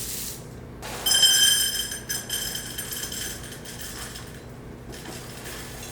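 A sharp clink against a mixing bowl about a second in as a cup of Honey Nut Cheerios is tipped in; the bowl rings and fades over two or three seconds.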